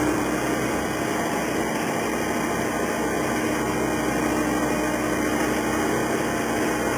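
Skid steer loader's engine running steadily, a constant low hum with no revving.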